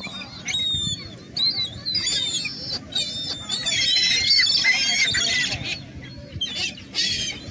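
A flock of seagulls calling over one another with high squealing cries, thickest about halfway through, as the birds crowd in to be fed.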